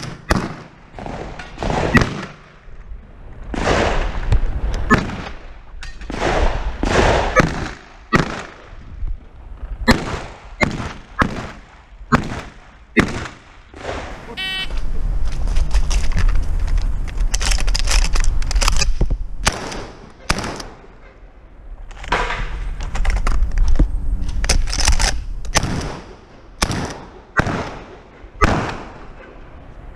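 A long string of 12-gauge pump-action shotgun shots fired on a practical shooting stage, roughly one a second, with short pauses between strings. Low rumbling noise runs under the shooting in the second half.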